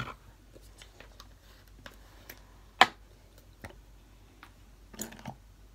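Sparse light clicks and taps of a spoon and a plastic glue bottle against a plastic tub while slime is being mixed, the sharpest click a little under three seconds in.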